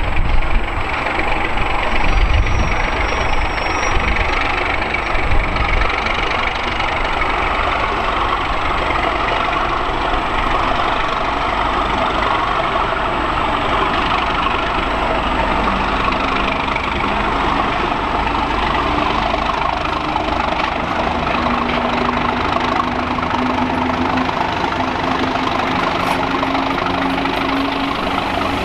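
Class 37 diesel-electric locomotive's English Electric V12 engine running as the loco moves slowly along the platform line hauling coaches. A steady engine note comes through from about halfway and holds as the loco draws close and passes.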